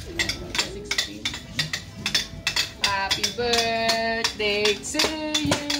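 Repeated light clinks of cutlery and dishes. About halfway through, a voice comes in singing long held notes.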